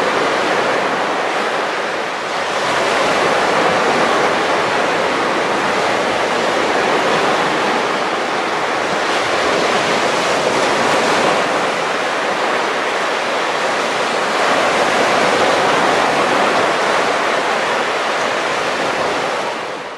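Baltic Sea surf breaking and washing onto a sandy beach, a steady rush of waves that swells and eases, fading out at the very end.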